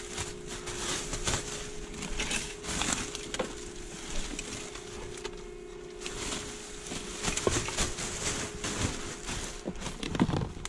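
Plastic trash bags crinkling and rustling in irregular bursts as gloved hands rummage through them, with a faint steady hum underneath.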